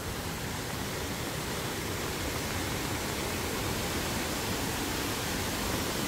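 Mountain stream rushing steadily, a continuous hiss of fast-moving water; the stream is swollen with high water.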